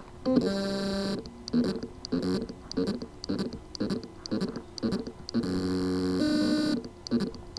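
Hard drive spindle motor with loose motor contacts, buzzing in short pitched pulses about twice a second, with longer buzzes near the start and end, as it tries to spin but cannot reach full speed.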